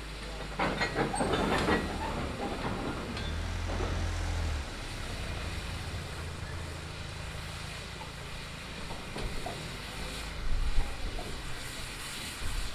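Great Western pannier tank steam locomotive moving slowly with a short goods train, steam hissing. There are a few sharp clanks in the first two seconds and a low rumble around four seconds in.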